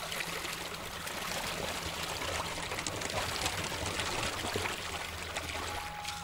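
Water trickling and splashing: a steady rush made up of many small splashes.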